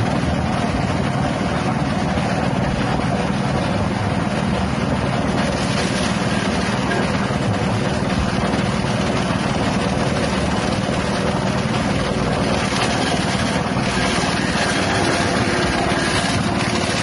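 Small 6.5 hp petrol engine running steadily at speed, driving a grass chopper.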